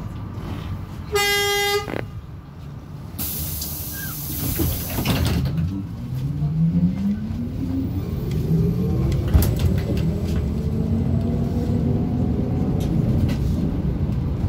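A horn toots once, briefly, about a second in, followed by a short hiss. Then the ZiU-682G trolleybus's DK-213 traction motor whines, rising steadily in pitch as the trolleybus picks up speed, over the rumble of the moving vehicle.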